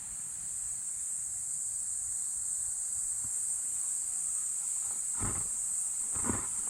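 Steady, high-pitched chorus of crickets or similar insects. From about five seconds in come a couple of footsteps.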